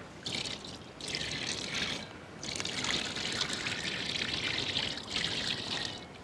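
Coconut oil poured in a thin stream from a steel bowl into a wide iron frying pan, trickling and splashing as it spreads over the pan. The pour comes in stretches, with a short break about two seconds in.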